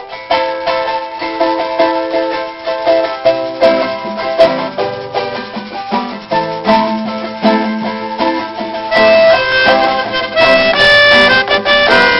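A melodica plays the tune over a strummed charango, an instrumental passage with no singing. About nine seconds in, the melodica's notes get brighter and are held longer.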